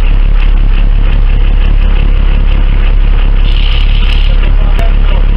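Boat engine running steadily, a loud, even low hum.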